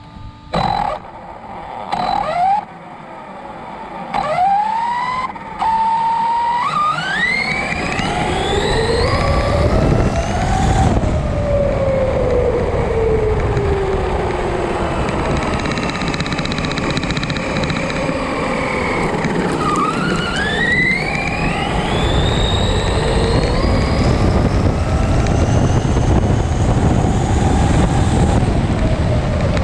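Arrma Outcast V2 RC stunt truck on a 4S LiPo, its brushless motor whining as it drives on sand, heard from a camera mounted on the truck. Two short throttle blips come first. Then the whine climbs steeply in pitch as the truck accelerates, sinks as it eases off, and climbs again about two-thirds through, over steady tyre and wind noise.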